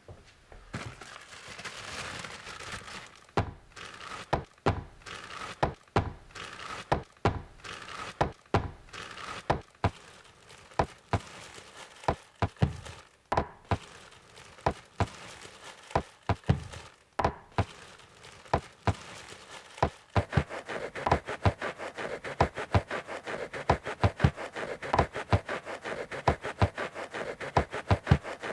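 Experimental music made from household alerts and buzzers: sharp knocks and clicks in a loose, uneven rhythm over a faint hum. About twenty seconds in, a faster, steadier pulse takes over above a buzzing tone.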